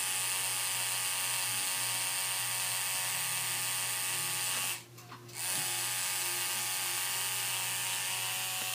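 Electric tattoo machine buzzing steadily as it outlines a tattoo on skin, stopping for about half a second around five seconds in and starting again.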